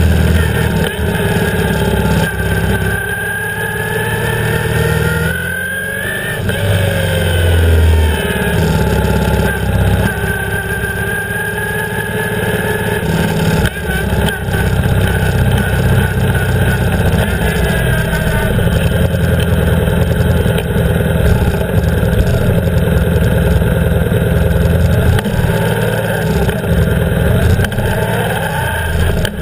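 BMW R 1150 GS's flat-twin boxer engine running as the motorcycle rides at low speed, heard close up. Its pitch rises over the first few seconds, drops about six seconds in, then rises and falls again with the throttle.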